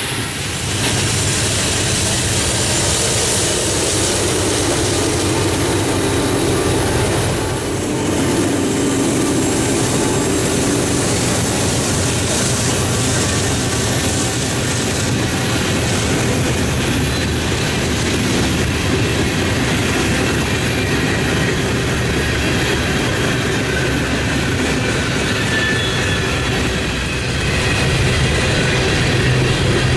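A train rolling past close by: a steady, loud rumble of wheels on the rails.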